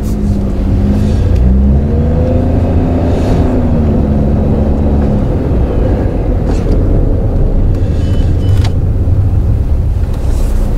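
Daihatsu Move Custom kei car driving, heard from inside the cabin: a loud, steady low rumble of road and engine noise. Over the first half an engine note rises and falls, and two short knocks come in the second half.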